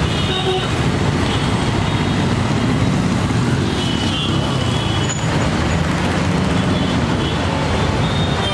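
Steady street traffic noise: a continuous low rumble of passing vehicle engines.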